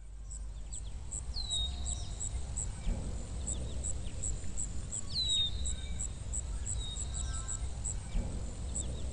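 Countryside ambience: an insect chirping steadily at about two chirps a second, with a bird giving a short falling whistle twice, over a low rumble.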